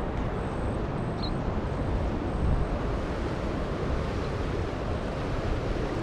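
Steady rushing noise of a rain-swollen, muddy river flowing fast, heaviest in a low rumble.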